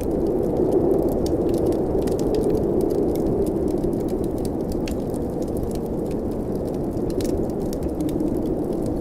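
Blizzard wind blowing steadily with a low, dense rush, while a wood fire crackles over it in scattered sharp pops.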